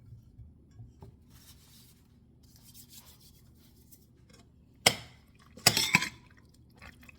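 Kitchen dishes and utensils clinking: faint handling at first, then a sharp clink about five seconds in and a quick run of three or four more a second later.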